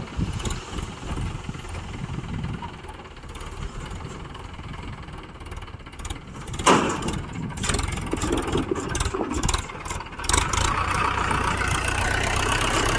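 Diesel engine of heavy machinery running, with one loud knock about seven seconds in. From about ten seconds in the engine runs louder and steadier.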